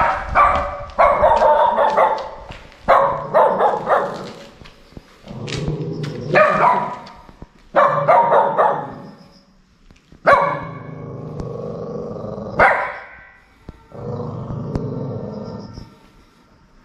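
Mother dog barking and growling in repeated bouts, the later ones longer and lower, warning off an intruder approaching her nest of newborn puppies.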